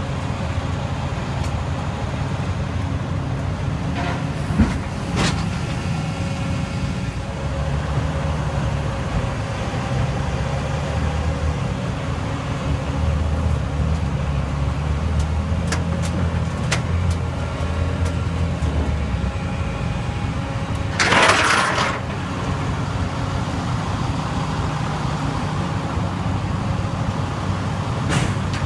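Vehicle engines idling steadily, with a few sharp clicks early on and a short loud hiss about two-thirds of the way through.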